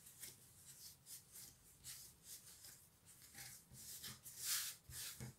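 Hands rolling and shaping soft bread dough on a floured worktop: faint, irregular rubbing and brushing strokes, the strongest about four and a half seconds in.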